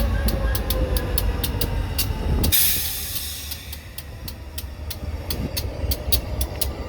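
High-hood GP diesel locomotive working under load with a turbo whine that falls slowly in pitch over a heavy low rumble. About two and a half seconds in comes a short loud burst of air hiss, and then the engine sound drops lower. A run of regular clicks continues throughout.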